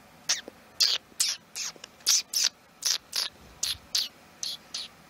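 A quick, irregular series of short, high chirps, each falling in pitch, about two or three a second.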